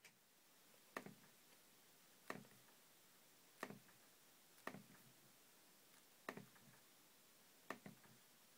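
Six faint, sharp clicks about one to one and a half seconds apart, each followed by a softer tick: clicks of a MacBook's trackpad as applications are launched.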